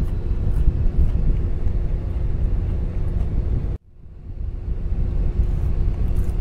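Steady low rumble with a constant hum, as of the semi-truck's engine idling, heard from inside the cab, with faint clicks of chewing over it. It cuts out abruptly a little over halfway through and fades back up.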